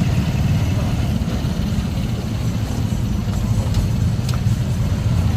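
Motor tricycle (motorcycle with sidecar) engine running steadily while under way, heard from on board as a low, even drone.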